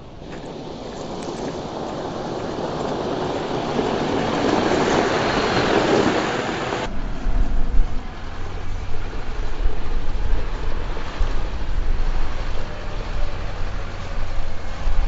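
Mercedes-Benz Unimog truck driving on a gravel track, a rush of engine and tyre noise that builds up, then cuts off abruptly about seven seconds in. After that comes a low, gusting rumble of wind buffeting the microphone.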